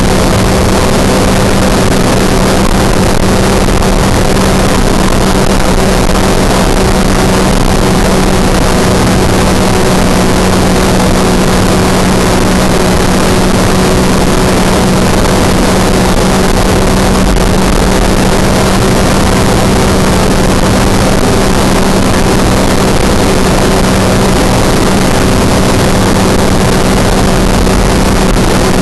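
Open-cockpit ultralight aircraft in cruising flight: its engine and propeller drone at one constant pitch under a loud, continuous rush of wind.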